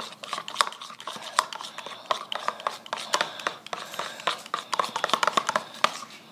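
Glue slime mixture being stirred with a utensil in a plastic cup just after a laundry-detergent activator went in: rapid, irregular clicking and scraping of the utensil against the cup. The stirring starts abruptly and stops just before the end.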